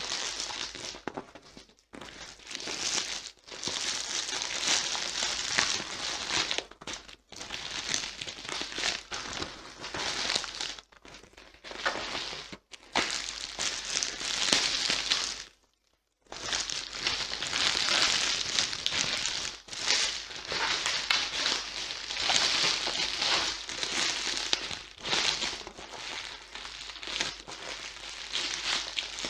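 A plastic packaging bag being crinkled and crumpled by hand as it is unwrapped. The crackling rustle comes in bursts with short pauses, and it drops out completely for a moment about halfway through.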